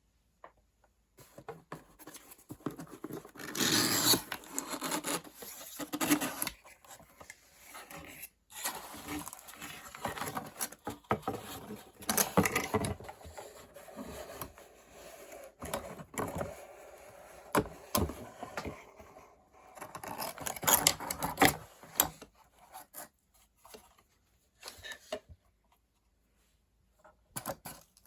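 Hands handling and opening a smartphone's cardboard retail box: irregular scraping and rubbing of cardboard and paper, with sharp clicks and taps. The loudest stretches come about 4, 12 and 21 seconds in, and it is mostly quiet near the end apart from a few clicks.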